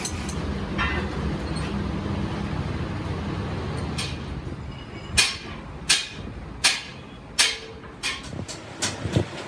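A steady low rumble, then four sharp knocks about three-quarters of a second apart, followed by a few lighter clicks near the end.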